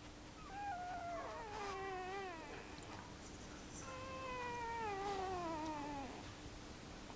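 Newborn Swiss mountain dog puppy whining: two long, falling cries, the first about half a second in with a wavering tail, the second about four seconds in, sliding steadily down in pitch. A faint steady hum lies underneath.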